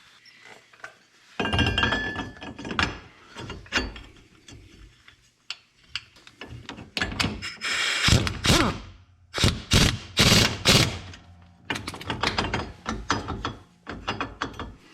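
Irregular metal knocks, clicks and scraping of hand tools on a tapered lug nut being tightened onto a wheel adapter stud. The nut is not seating fully, so it still wiggles.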